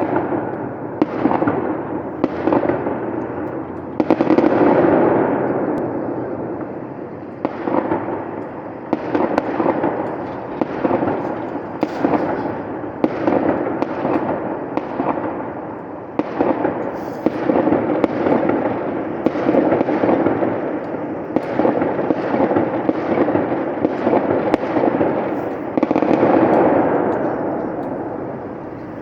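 Fireworks display: aerial shells bursting in quick succession, about one bang a second, each trailing off in echo. The bangs overlap into a continuous rumble.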